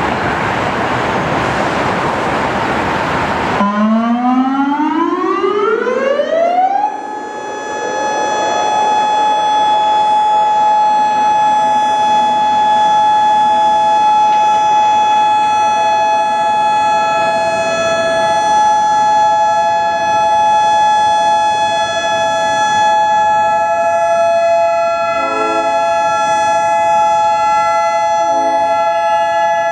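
Federal Signal Modulator 6024 outdoor warning siren winding up from a low pitch to full speed over about three seconds, then holding a steady two-tone alert signal. A loud rushing noise fills the first few seconds and cuts off abruptly as the siren begins to wind up.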